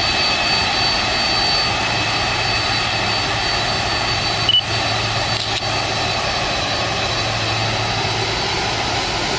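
Boeing 747-400F's jet engines running with a steady whine over a broad rumble as the freighter rolls along the ground.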